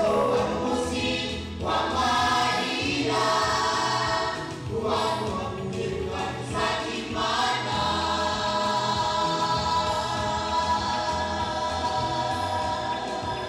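A choir singing gospel worship music, many voices together; from about seven seconds in they hold long, sustained notes.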